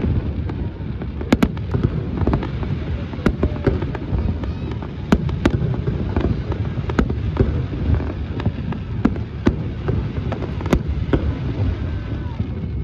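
Fireworks going off: a continuous low rumble of bursts with many sharp cracks and bangs coming at irregular intervals.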